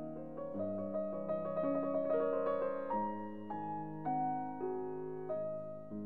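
Background piano music: slow, gentle chords and single notes, each struck and left to fade, with a new note or chord about every half second to a second.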